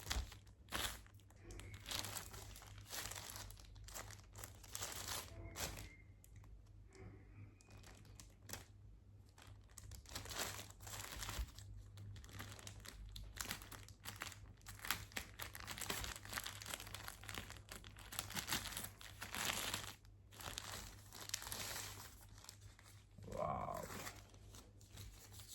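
Packaging crinkling and tearing, with irregular crackles throughout as it is handled and pulled open by hand.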